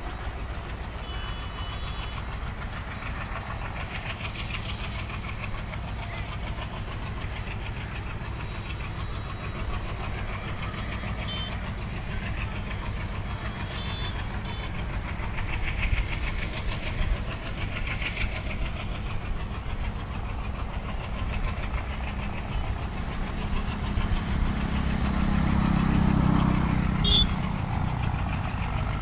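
ALCo diesel engine of an Indian Railways WDG3A freight locomotive running under load as the train passes. It grows louder as the locomotive comes close, loudest about 26 seconds in.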